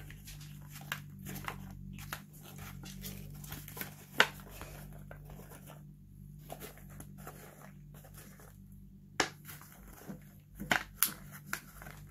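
Thin clear plastic Lunchables tray being handled and turned over: crinkles and sharp plastic clicks, with one loud click about four seconds in and a run of clicks near the end, over a low steady hum.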